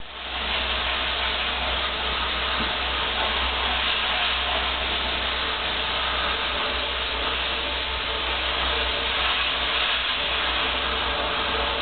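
Muddy water pouring and spattering against window glass: a steady, dense hiss with a low rumble underneath.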